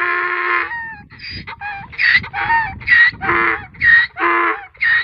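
Donkey braying: a long held note that breaks off within the first second, then a run of hee-haws, high wheezing notes alternating with lower honks, about two calls a second.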